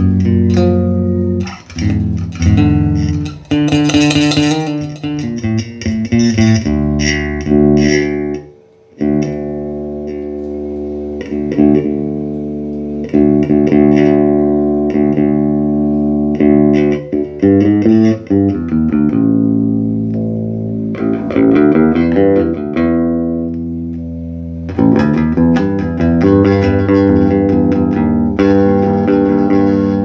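Electric bass played through a just-repaired Laney RB4 bass combo amp during a sound test: sustained notes and double-stops ringing out, with a short gap in the playing about eight seconds in.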